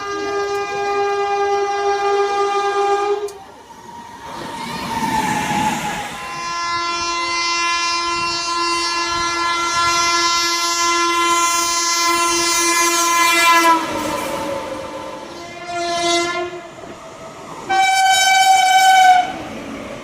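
Indian Railways locomotive horn sounding a series of blasts. One is held through the first three seconds, a long steady blast of about seven seconds starts around six seconds in, a short blast comes near fifteen seconds, and a shorter, higher-pitched blast sounds near the end. Rushing train noise fills the gaps between them.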